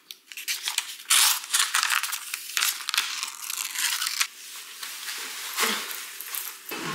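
A paper page being torn off a tear-off desk calendar: a run of crinkling, ripping strokes, loudest about a second in, easing into fainter paper rustling after about four seconds.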